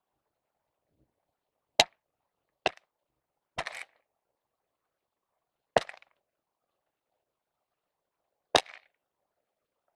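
Six sharp knocks on an underwater camera housing, irregularly spaced, as sunfish nip and bump against it.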